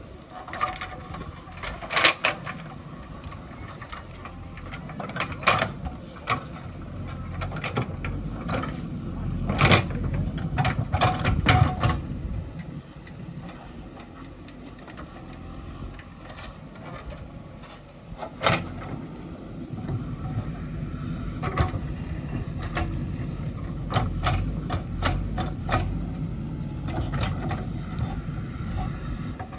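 A JCB 3DX backhoe loader's diesel engine running, its sound rising and falling with the load, with sharp knocks and clanks from the working machine, loudest about 2, 10, 12 and 18 seconds in.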